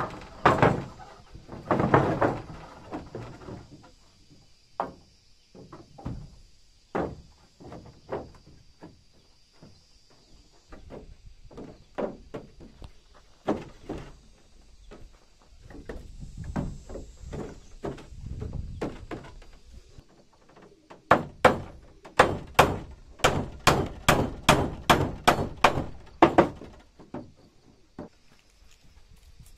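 Heavy wooden planks thud as they are set down on a plank deck. Scattered knocks of timber being handled follow, then a quick run of sharp wooden taps, about three a second, for some five seconds near the end.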